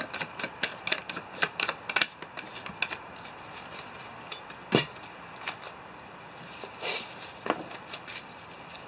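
Quick run of small clicks and taps as a plastic canteen and metal cooking gear are handled, followed by a sharp knock a little before the middle, a brief scraping rustle, and one more knock near the end.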